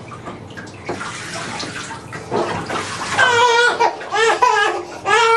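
Water splashing in a bathtub as a small child is bathed. About three seconds in, the child starts crying in loud, high, wavering wails.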